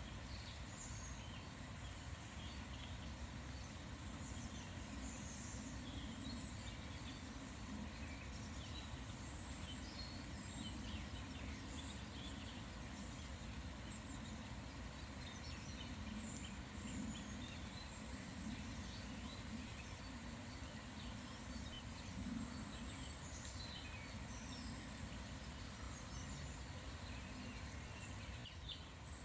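Wild birds calling and chirping in short, scattered notes over a steady, quiet outdoor background hiss.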